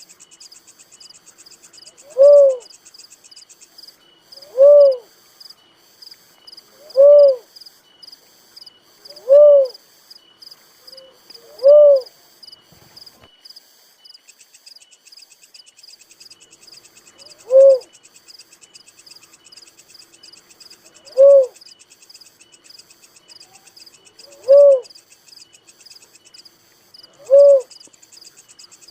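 A dove giving single rising-and-falling hoots, one every two to three seconds, with a gap of about six seconds midway and slower spacing after it. A steady high-pitched insect trill runs underneath.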